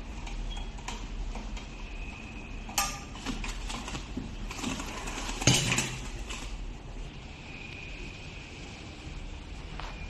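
Clinks and knocks of a metal T-handle hex key worked at a bicycle's rear axle, with two louder knocks about three and five and a half seconds in, over a steady low hum.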